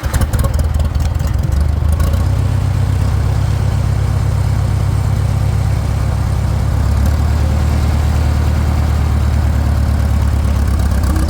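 A Farmall 400 tractor's four-cylinder gasoline engine runs steadily and loudly close by, its firing pulses coming in a rapid even beat.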